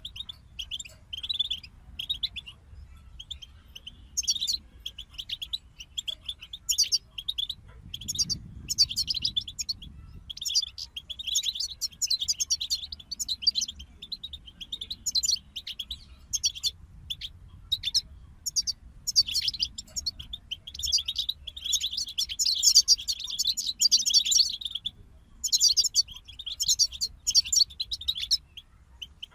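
European goldfinch song: fast, tinkling twitters and trills in phrases a few seconds long, broken by short pauses, busiest near the end.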